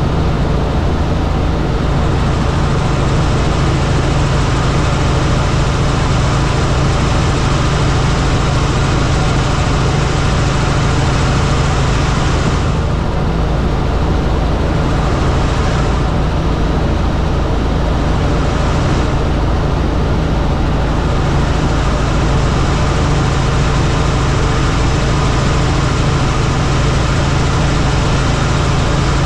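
Helicopter running steadily: a constant loud drone with a strong, even low hum under it.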